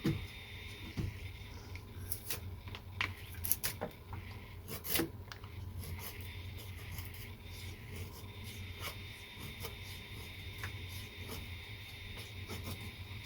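Faint rubbing and scraping with scattered light clicks, over a steady low hum.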